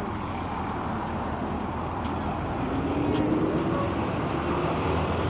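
Steady outdoor background noise, a low rumble like road traffic, with a few light knocks from the phone being handled close to the microphone.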